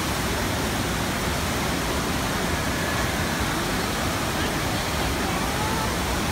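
Steady rush of water sheeting up the slope of a FlowRider wave machine, with faint voices in the background.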